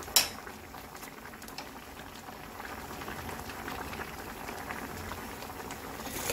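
Kimchi jjigae boiling in a frying pan: a steady bubbling with many small pops. One sharp click shortly after the start is the loudest sound.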